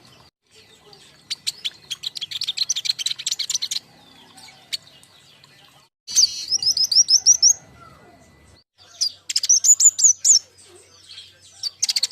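A group of young King Konin birds calling: bursts of rapid, chattering chirps, and about six seconds in a quick run of about eight clear whistled notes. Lure and tutor calls for other birds of the same kind.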